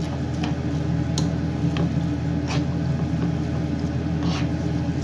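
Vermicelli noodles frying in oil in a nonstick pan while being stirred with a spatula: wet, squishy stirring with a sharp click or scrape about once a second. A steady low hum runs underneath.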